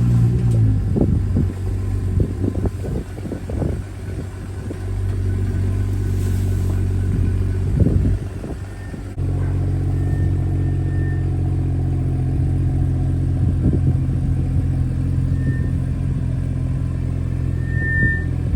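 BMW F30 3 Series engine running at low revs with a steady hum that shifts pitch about a second in and again about nine seconds in. A few knocks come in the first few seconds, and short high beeps near the end.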